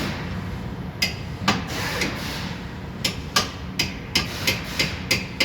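Hammer striking a chisel wedged in the steering knuckle's strut clamp to spread it open: about ten sharp metal-on-metal blows, a couple at first and then a quicker run of about three a second.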